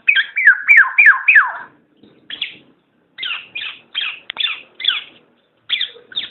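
Black-naped oriole (kepodang) calling: a quick run of about five downward-sliding notes, then after a short pause a series of shorter, higher falling calls at about three a second.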